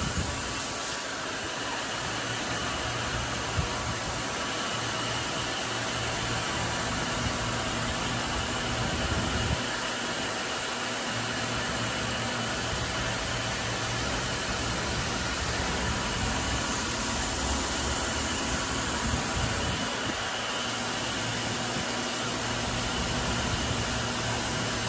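A 2006 Star SB-16D CNC Swiss-type lathe running a machining cycle: a steady whirring hiss of the spindle and coolant spray, with a faint high steady tone and a few light clicks.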